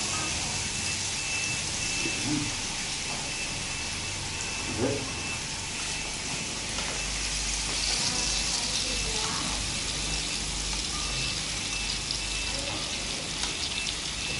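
Bacon, beef and shrimp sizzling steadily on an electric grill plate.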